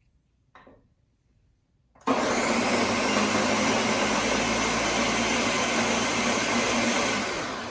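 Blender switching on about two seconds in and running steadily as it purées boiled tomatillos, habaneros, onion, garlic, cilantro and water into salsa verde, then winding down near the end.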